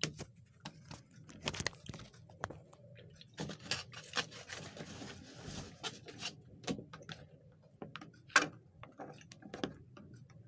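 Handling noise: scattered clicks, knocks and squeaky scrapes from a phone being repositioned and a styrofoam takeaway box being handled. There is a rustling scrape in the middle and a sharp knock about eight seconds in.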